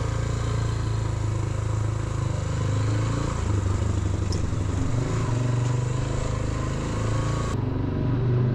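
Motorcycle engine running at low speed, its pitch shifting down and up a few times as the throttle changes.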